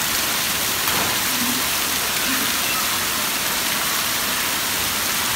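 Steady hiss of falling and running water in a water park's shallow play pool, sounding like heavy rain.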